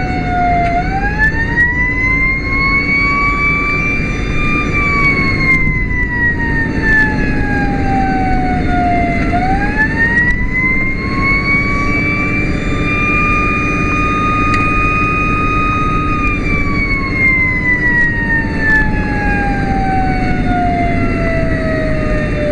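Whelen Sapphire electronic siren sounding a wail, rising and falling in long slow sweeps of several seconds each, heard from inside the cab of a moving pickup with steady road and engine noise underneath.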